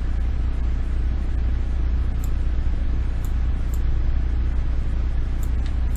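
Steady low hum with a background hiss, and a few faint, short high clicks.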